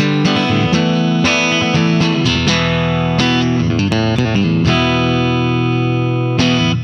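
Electric guitar, an LTD EC1000 Deluxe, playing chords with all four magnetic pickups in parallel blended with its piezo acoustic pickup. The strummed chords ring on, with several changes of chord.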